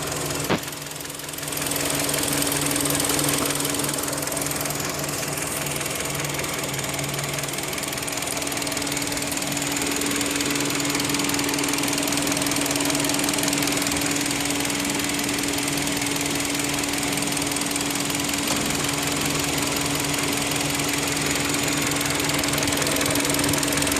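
2010 Kia Rondo engine running steadily with a fast, even ticking from the motor, a noise the owner took as a sign the engine would soon fail.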